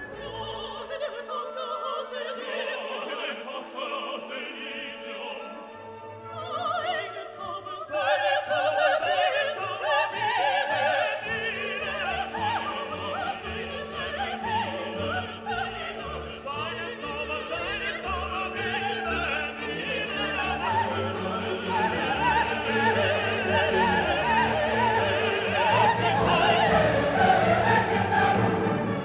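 Classical background music: an orchestra with choir and operatic singing, quieter at first and swelling fuller about a third of the way in.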